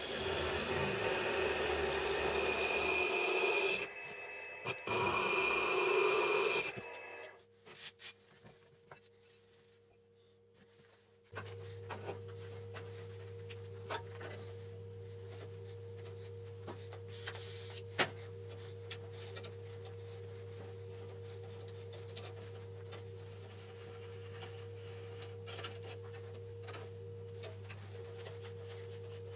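A bench drill press drilling through a steel flat bar, a loud grinding with a brief drop in the middle, stopping about seven seconds in. After a few seconds of near quiet, a steady low hum with faint scattered clicks as a hole is threaded by hand with a tap in a tap wrench.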